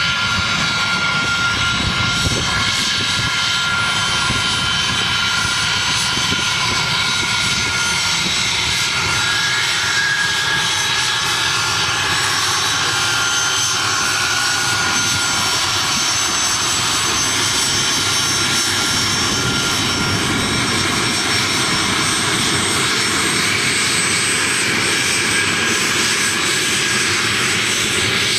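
Learjet business jet's twin rear-mounted jet engines running as it rolls along the runway: a steady jet whine with several high, held tones over a rushing roar.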